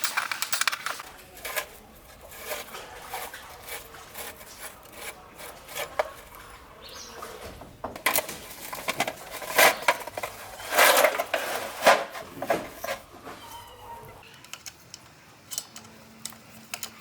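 Metal parts and tools clinking and knocking as they are handled, in irregular clicks with a louder run of clatter around the middle.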